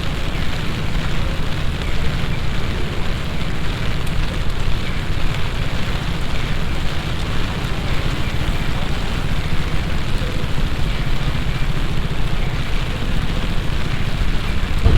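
Heavy passing summer rain falling steadily: a dense, even hiss, with a low rumble underneath.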